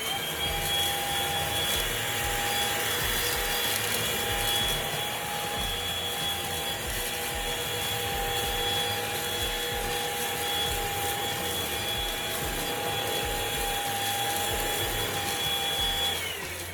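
Cordless vacuum cleaner's motor running with a steady high whine. It spins up as it starts and winds down about a second before the end as it is switched off.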